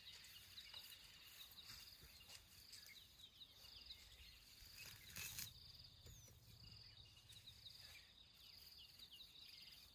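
Faint, steady trilling of insects in an otherwise quiet rural morning, with a brief rustle about five seconds in.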